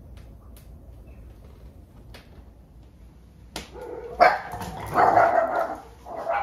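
Small dogs barking repeatedly, starting about three and a half seconds in. It is alert barking, set off by a visitors' car pulling up.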